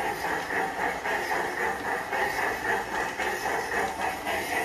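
PIKO G-scale starter-set steam tank locomotive running round a small track loop: a steady whir of its motor and gears with its wheels rolling on the brass rails. The sound swells in a regular pulse a few times a second.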